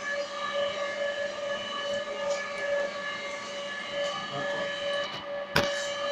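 Chakli/murukku extruding machine's electric motor running with a steady whine at one pitch with overtones. A single sharp click about five and a half seconds in.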